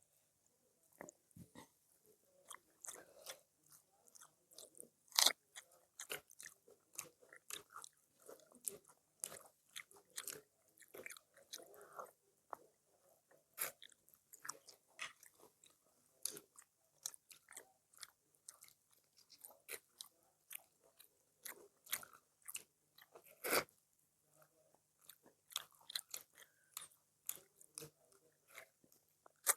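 Close-up eating sounds: steady chewing and biting with crisp crunches and wet mouth clicks, irregular and continuous, with a few sharper, louder crunches.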